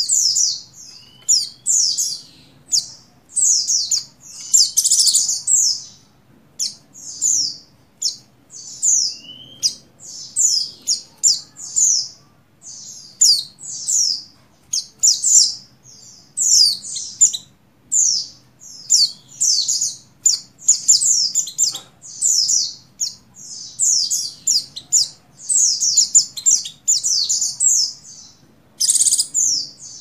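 White-eye (pleci) twittering in quick runs of short, high, downward-slurred chirps with brief pauses between runs. This is the call of a female in breeding condition calling to a male.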